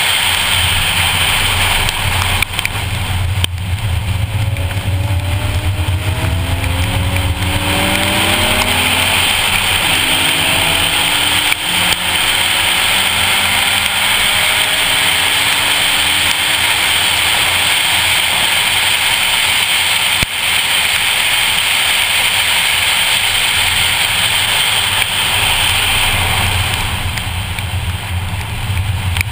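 2014 Ford Focus ST's turbocharged 2.0-litre four-cylinder engine under hard acceleration. Its note rises and breaks several times in the first half as it climbs through the gears, over a steady hiss of tyres on a soaking-wet track.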